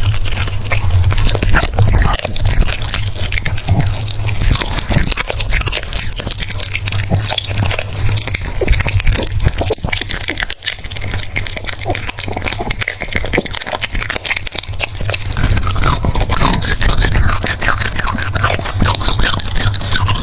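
French bulldog chewing and crunching food close to the microphone: a dense run of wet bites, crunches and smacks, over a steady low hum.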